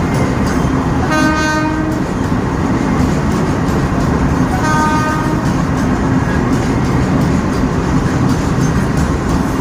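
Train horn sounding two short blasts, each just under a second long and about three and a half seconds apart, over the steady rumble of a running train.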